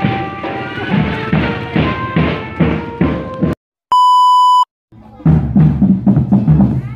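School marching drum band playing: regular drum beats under a held melody line, cut off abruptly about three and a half seconds in. After a brief silence comes a loud, steady test-tone beep lasting under a second, and then the drumming starts again near the end.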